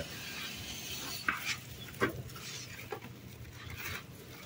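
Faint rustling and a few light clicks of cracked corn grits being handled in the hand, over a faint low hum.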